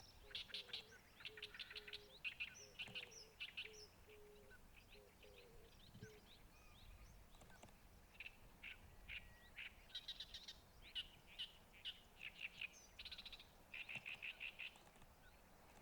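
Songbirds giving rapid, chattering runs of chirps in bursts, with a short pause in the middle. A lower note repeats about twice a second in the first few seconds.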